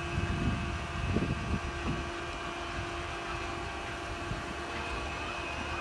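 Chair-swing tower ride running: a steady mechanical hum with a held tone that fades out about three and a half seconds in.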